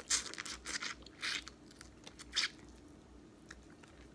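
Close-miked mukbang eating: crunchy bites and wet chewing of boiled crawfish. A run of crunches fills the first two and a half seconds, then softer chewing with a few scattered clicks.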